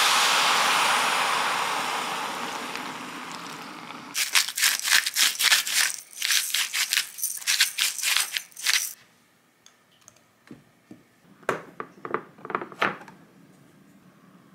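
Liquid poured from a glass bottle splashing over ingredients in a pot, a loud hiss that fades over the first few seconds. About four seconds in, a rapid rattling clatter takes over for about five seconds, followed by a few scattered clicks.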